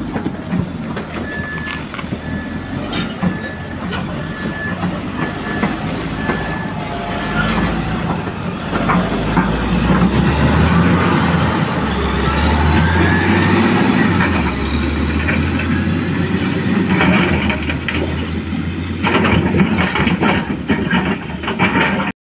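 Heavy construction equipment's diesel engine running under load, its reversing alarm beeping about eight times at an even pace over the first several seconds. The engine then swells louder, with clanking and scraping of metal and broken concrete that gets heavier near the end.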